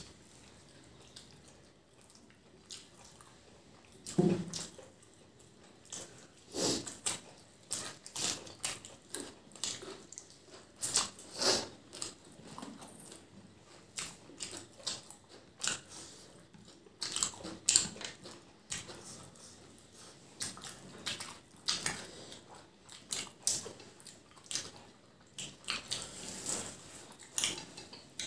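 Eating sounds of chicken biryani eaten by hand: chewing, lip smacks and wet squishing as fingers mix rice and curry. The sounds are irregular short clicks and smacks, sparse at first and frequent from about four seconds in.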